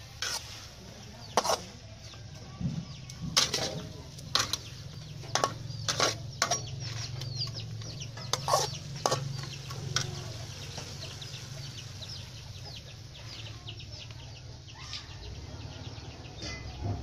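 A metal spatula scraping and clanking against a metal wok during stir-frying, about ten sharp knocks in the first ten seconds, over steady crackling from the frying food.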